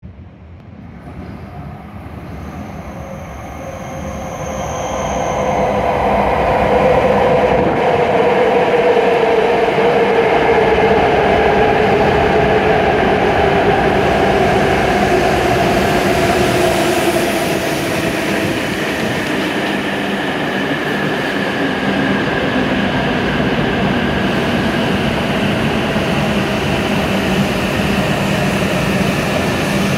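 W7 series Shinkansen train pulling in along the platform and slowing. Its running noise swells over the first several seconds and then holds as a steady loud rumble. A tone within it falls slowly in pitch as the train slows.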